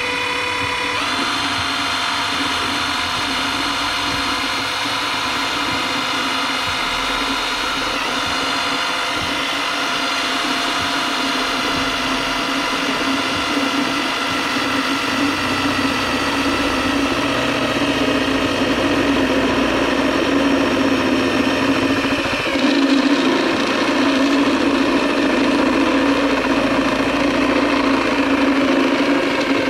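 Electric drill running steadily under load, boring a hole through an engine oil pan for a turbo oil-return bung. The motor whine sags slightly in pitch about two-thirds of the way through.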